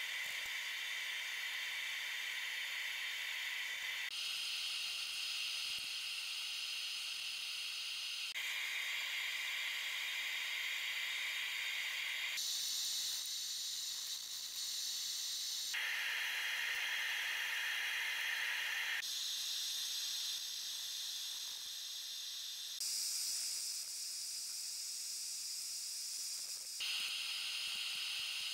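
A steady hiss that changes tone abruptly every three to four seconds, with no hammer blows heard.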